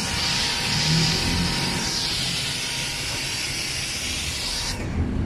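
Pressure washer with a foam-cannon soap bottle spraying a jet of soapy water onto a car wheel: a steady hiss of spray and splashing over a low rumble, cutting off shortly before the end.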